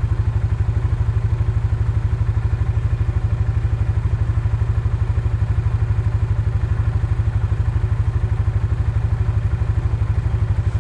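Vehicle engine running steadily at an even speed, with a regular low pulsing beat of about ten a second.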